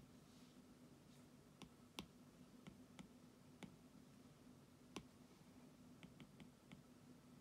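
Near silence with faint, scattered clicks, about a dozen, the two sharpest about two and five seconds in and a quick run of four or five a little after six seconds.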